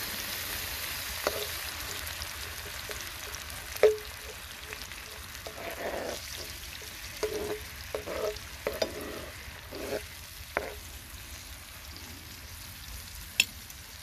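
Tomato and onion sauce sizzling and simmering in a large frying pan, with a metal spoon stirring and scraping against the pan. A sharp clink of the spoon on the pan comes about four seconds in, and a run of short scrapes follows.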